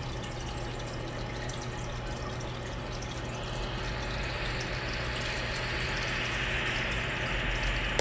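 Ulanzi cooling fan clipped to a Sony a6700 running at its level-two setting: a steady airy whir that grows louder about three seconds in. Under it there is aquarium water trickling and a low hum. Near the end there is a click.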